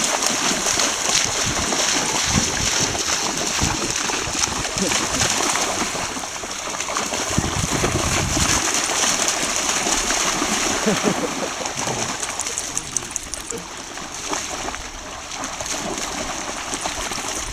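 A border collie running and leaping through shallow sea water, its legs splashing continuously and irregularly. Near the end a second dog splashes through the water alongside it.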